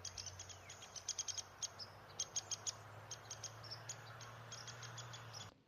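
Woodpecker sound clip: many short, sharp, high-pitched ticks and chirps in irregular quick runs, over a faint steady low hum.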